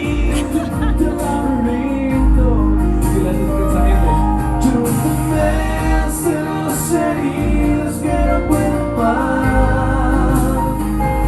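Band music of a Spanish-language pop ballad in an instrumental stretch between sung lines: steady bass and drums with cymbal hits under sustained melody lines.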